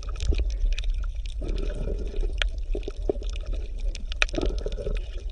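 Underwater water ambience: water gurgling and bubbling over a steady low rumble, with many small pops and clicks.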